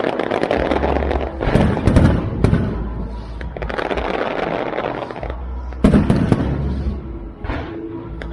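Fireworks display: aerial shells bursting over a continuous crackling rumble, with clusters of sharp bangs about two seconds in and again near six seconds.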